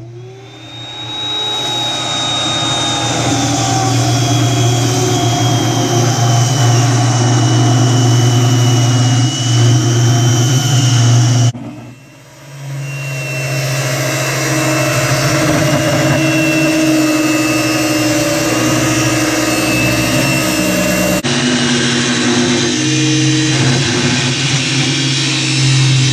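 Corded DeWalt circular saw ripping a 15-degree bevel along a pressure-treated 2x8 board, in two long cuts with a short break about twelve seconds in. The motor's whine sags a little in pitch as the blade works through the wood.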